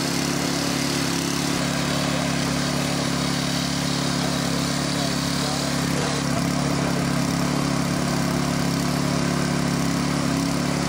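An engine runs steadily at one even speed throughout, with no revving, as motorised equipment does at a vehicle-rescue scene.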